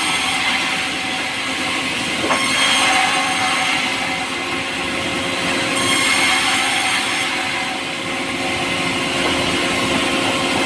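Power saw running steadily through a pulai log, a continuous machine noise with a hiss that comes and goes as the blade cuts the light, soft wood.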